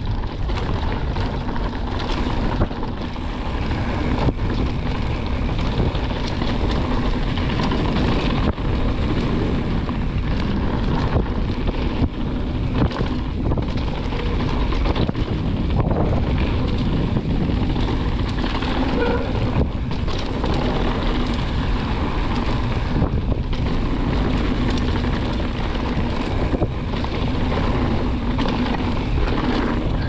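YT Jeffsy full-suspension mountain bike rolling fast down a dirt and gravel trail: continuous tyre noise on loose ground with scattered knocks and rattles from the bike over bumps, under steady wind buffeting the microphone.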